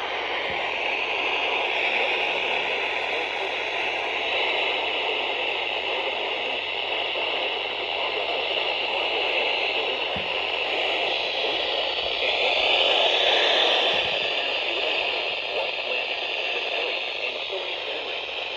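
Steady radio static hiss from a radio receiver, swelling slightly about two-thirds of the way through.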